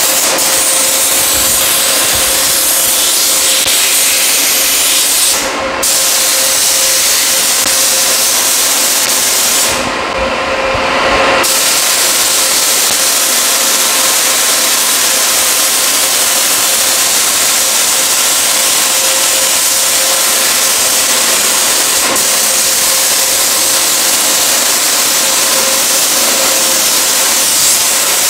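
Gravity-feed paint spray gun hissing steadily as compressed air sprays a dry coat of paint onto an engine, cut off briefly about five seconds in and again for a second or so around ten seconds in as the trigger is let off.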